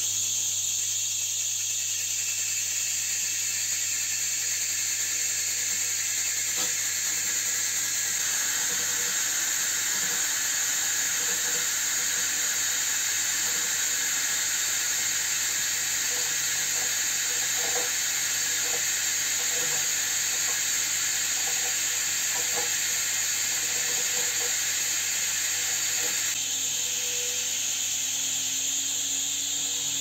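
Hand-held scraping tool cutting the rim of a spinning plywood bandsaw wheel, a steady hiss over the low hum of the washing-machine motor that drives it. The wheel is being turned down to match the other wheel's diameter and given a crown.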